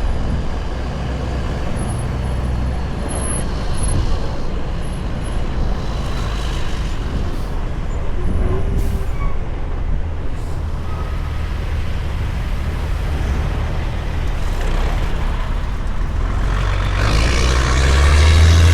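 Heavy semi-truck's diesel engine running with a steady low rumble, pulling a combination of about 129,000 lb. It grows louder near the end.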